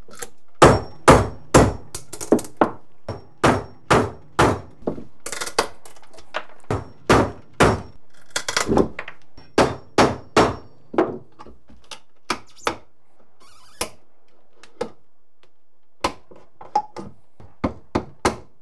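Hammer striking steel prying tools, a flat pry bar and end-cutting nippers, about two sharp metallic blows a second, to work stapled wood strips off the end of a steel door. After about eleven seconds the blows give way to scattered, quieter clicks as staples are pulled.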